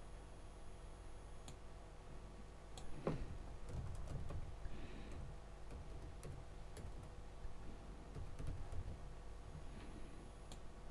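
Computer keyboard typing: scattered keystroke clicks, busiest in the middle, over a steady low hum.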